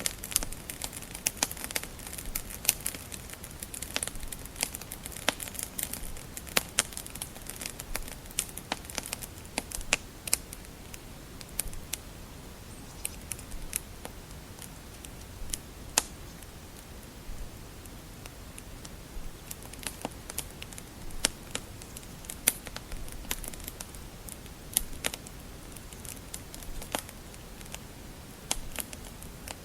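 Wood fire burning in a fireplace: a steady soft hiss with irregular sharp crackles and pops of the burning logs, busier at the start and again near the end.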